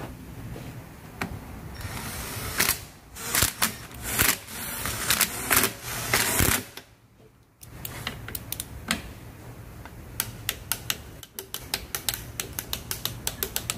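A cordless driver runs in short bursts on the rear cover bolts of an FN21 automatic transmission. Then a ratcheting torque wrench clicks in a quick, even run, about four clicks a second near the end, as the bolts are tightened.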